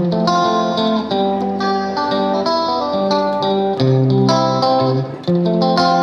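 Calm instrumental music: a guitar plucking a steady run of ringing single notes over lower bass notes.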